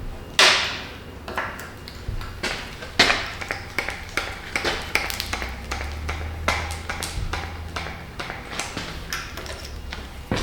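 Metallic clicks and clinks of a hand-lever grease gun being worked on an excavator's grease fittings, irregular and spread throughout, with one sharp ringing clink about half a second in.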